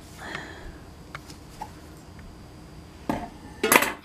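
Handling noise from freeing small parts of a toy's packaging: faint scattered clicks, then two short, louder rustles about three seconds in and near the end.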